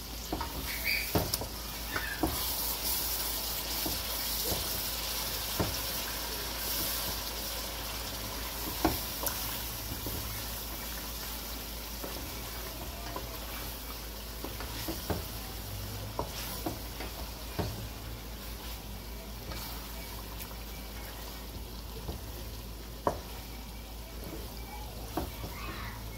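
Pigeon bhuna cooking down in a metal pot: the thick curry sauce sizzles steadily while a wooden spatula stirs it, knocking and scraping against the pot now and then.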